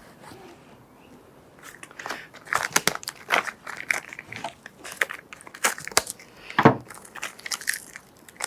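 Crinkling of plastic packaging with irregular small clicks and knocks as new fork parts are handled, the loudest knock near the end.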